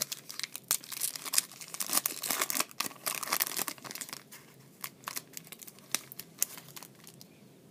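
Foil trading-card pack wrapper crinkling as it is torn open and pulled apart. The crackling is dense for about four seconds, then thins to scattered crackles.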